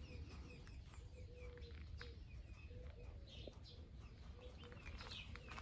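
Faint birdsong: scattered high chirps over a short, low note repeated about twice a second.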